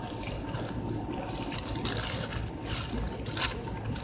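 Wet chewing and mouth sounds of someone eating a double cheeseburger, with irregular crackly smacks about a second apart.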